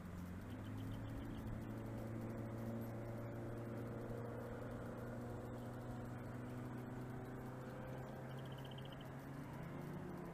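Motorboat engine running slowly at low revs as the boat passes at a distance, a steady hum that rises a little in pitch near the end as it picks up speed.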